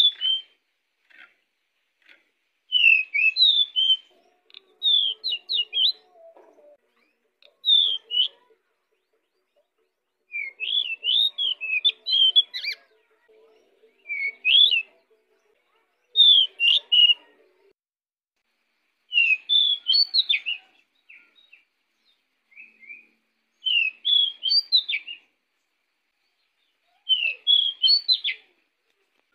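A male pied bushchat (decu) singing in full, vigorous song: about ten short, quick warbling phrases, each a second or two long, repeated after pauses of a second or more.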